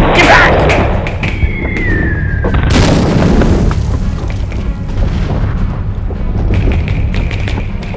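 Battle sound effects over film music: a boom right at the start, then a falling whistle like an incoming shell, ending in a loud explosion about three seconds in that dies away over a couple of seconds, over a steady low rumble.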